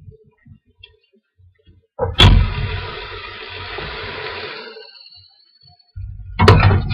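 Diced tomato going into a hot pot of frying chicken and onions: a sharp knock, then a burst of sizzling that dies down over about three seconds. Near the end, sizzling and clicks of a spoon start again as the pot is stirred.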